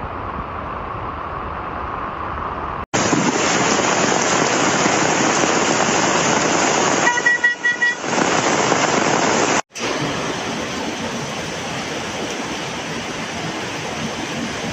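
Steady loud noise of rain, changing abruptly twice, with a car horn honking a few short times about seven seconds in.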